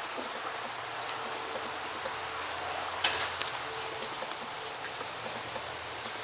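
Steady outdoor background hiss, with a few faint clicks about three seconds in and a faint hum now and then.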